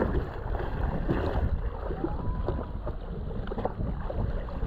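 Wind buffeting the microphone, an uneven low rumble, on a jet ski out on the water.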